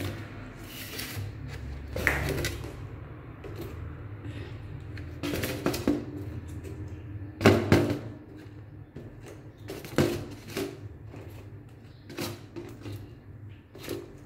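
Handling sounds of stiff sun-dried fish being pulled off a rack of wooden barbecue sticks and laid on a white tray: scattered knocks and taps several seconds apart, the loudest about seven and a half seconds in, over a low steady hum.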